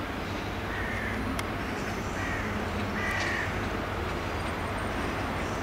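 A bird calling three times, in short calls about a second apart, over the steady low rumble of a Hitachi Class 800 train approaching slowly.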